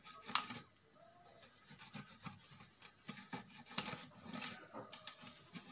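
Old scouring pad scrubbing around the top of a blender's motor base and its drive coupling, in short, irregular rubbing strokes.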